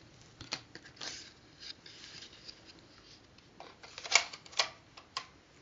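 Soft papery rustling and small clicks from handling a cardboard View-Master reel and its booklet, as the next reel is put in. A few sharper clicks come near the end.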